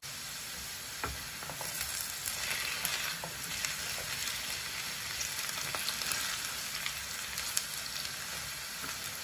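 Diced potatoes frying in hot oil in a pan, sizzling steadily as they finish cooking on medium heat, with scattered light clicks.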